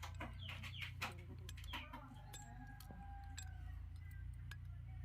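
Domestic fowl clucking: several short falling calls in the first two seconds and a longer drawn-out call in the middle, with a few faint clicks and a steady low hum.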